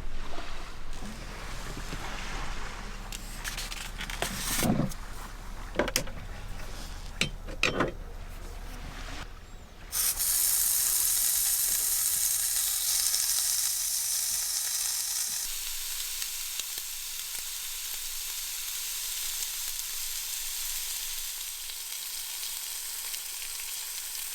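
A few clattering knocks, then about ten seconds in, food starts sizzling in a hot pan: a sudden high, steady sizzle that eases off slightly but keeps going.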